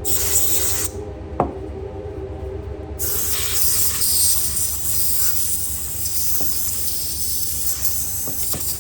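Can of compressed air hissing as it blows into a slipjoint knife's spring joints, forcing out oil and loosened grime. A short burst, a sharp click, then a long steady burst.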